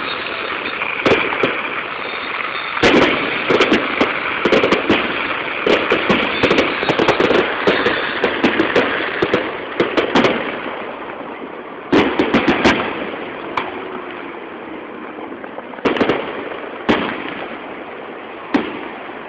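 Aerial fireworks bursting: a dense flurry of bangs and crackling through the first half, then a few separate loud bangs near the end.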